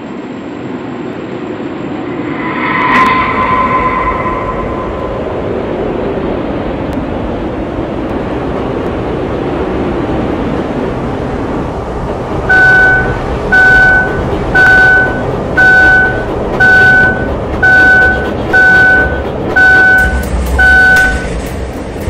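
Low rumbling noise like a running vehicle, with a short pitched tone about three seconds in. From about halfway, a steady series of nine electronic beeps, about one a second, which are the loudest sound.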